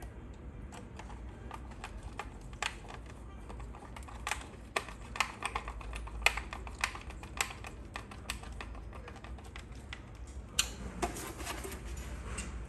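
Irregular light clicks and ticks of a Phillips screwdriver turning screws into the plastic casing of a Huawei B612 router. Near the end there is a rustle of plastic being handled as the router is turned over.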